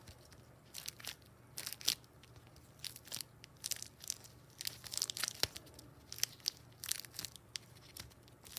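A homemade pop-it fidget being pressed by hand, giving irregular small crinkling crackles, several a second, rather than clean pops. This fits the maker's complaint that it doesn't pop very well.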